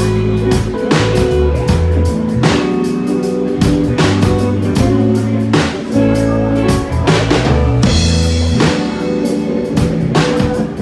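A band playing a song live: a drum kit keeping a steady beat under held bass notes and guitar.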